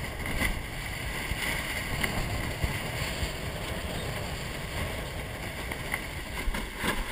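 Water rushing and splashing along the hull of a 470 sailing dinghy moving fast, with spray thrown up at the bow, under a steady low rumble of wind on the microphone. A few short splashes or knocks stand out from the steady rush.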